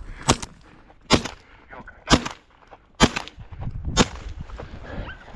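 Shotgun fired five times in quick succession, about one shot a second, each a sharp crack with a short echo.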